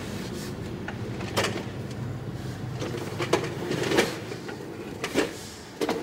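Several short, sharp metal knocks and clanks, about five spread over a few seconds with the loudest near the middle, from parts being worked into place on a semi truck's drive shaft and yoke, over a steady low hum.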